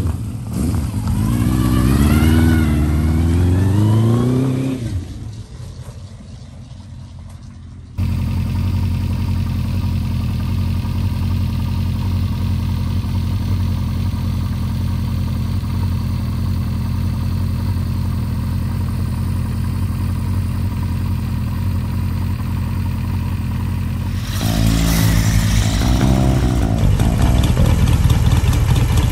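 Honda CB400F inline-four motorcycle engine accelerating, its pitch rising and falling several times through the gears, then fading away. From about eight seconds in, the same engine idles steadily. Near the end a BSA single-cylinder motorcycle engine takes over, running louder with an uneven beat.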